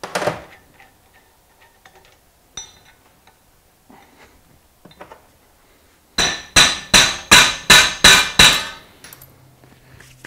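A few light clinks of metal parts being handled, then a quick run of about eight sharp, ringing hammer blows on metal, about three a second.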